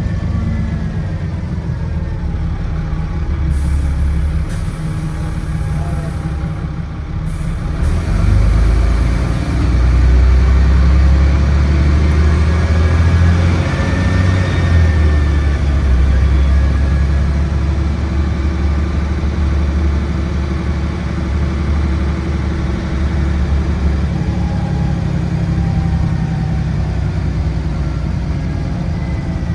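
Dennis Trident double-decker bus heard from inside the saloon: its diesel engine and Voith automatic gearbox running under way. The engine grows louder and heavier about eight seconds in as the bus accelerates, and settles again in the last few seconds.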